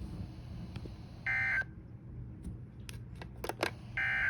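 Two short buzzy bursts of Emergency Alert System SAME digital data tones, each about a third of a second long and a few seconds apart, with a few faint clicks between them over a low hum. Bursts this short are typical of the end-of-message code that closes a weather-radio alert.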